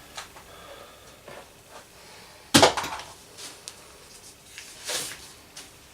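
Handling noises with no motor running: one sharp clack about two and a half seconds in, then a short rustle near five seconds.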